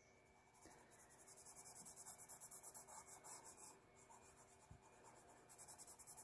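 Faint scratching of a wooden graphite pencil shading on paper, quick back-and-forth strokes at about seven a second. The shading stops for about a second and a half, a little under four seconds in, then starts again near the end.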